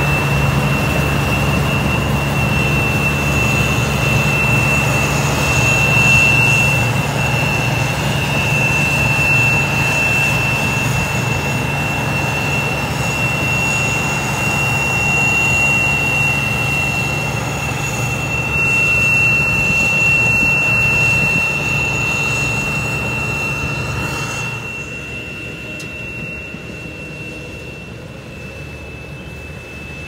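New Holland Clayson combine harvester running, a low engine hum with a steady high whine over it. The sound drops off sharply about three quarters of the way through as the harvester draws away.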